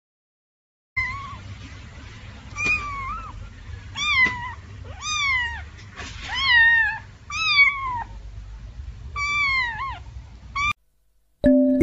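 A young kitten mewing over and over: about eight high, thin mews, roughly one a second, each bending up and down in pitch.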